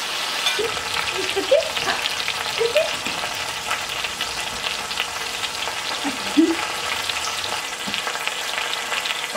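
Chicken pieces browning in hot oil in the Instant Pot's inner pot on sauté: a steady sizzle with scattered crackling pops.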